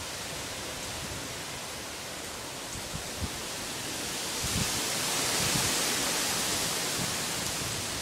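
Strong gusting wind rushing through palm trees and foliage, a steady rushing rustle that swells louder about halfway through, with low irregular buffeting of wind on the microphone.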